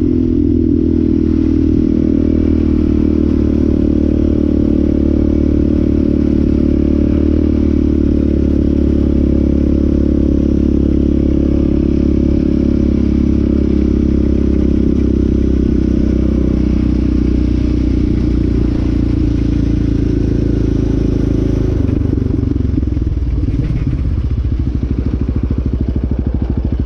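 Yamaha Raptor 700R's single-cylinder four-stroke engine running at a steady pace under way, with some clatter. It eases off about five seconds before the end as the quad slows.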